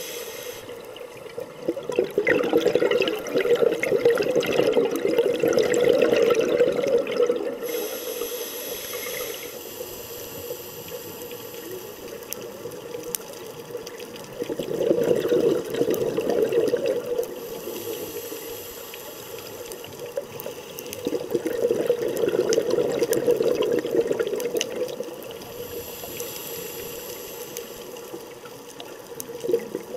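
Scuba diver breathing through a regulator underwater: bursts of exhaled bubbles every six or seven seconds, with a thin hiss between them.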